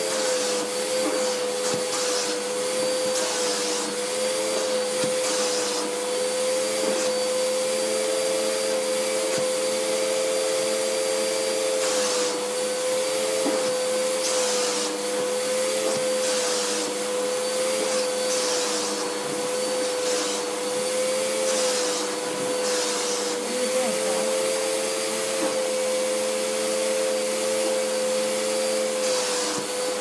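Vacuum cleaner running steadily, its hose nozzle being drawn over a cat's fur: a constant hum under a steady suction hiss that brightens briefly every few seconds.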